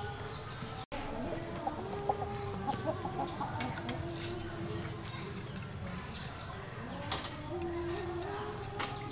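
Chicken clucking in low, drawn-out calls, with small birds chirping in the background.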